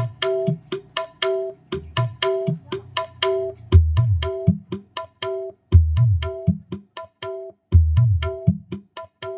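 A recorded song played through a home sound-system package: 8-inch speaker boxes with tweeters, a subwoofer and a two-channel power amplifier. Quick hand-drum strikes come about four a second over a repeating two-note figure. A deep bass beat comes in about four seconds in and hits roughly every two seconds.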